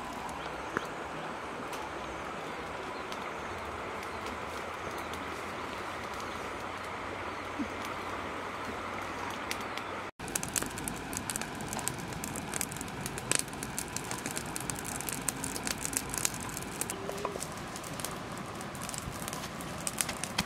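Open wood fire crackling over a steady hiss. After about halfway the crackles come sharper and more often.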